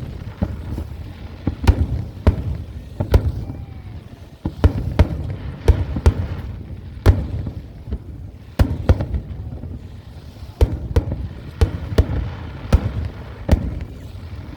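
Fireworks shells bursting in quick, irregular succession, one or two sharp bangs a second, with a low rumbling echo between them.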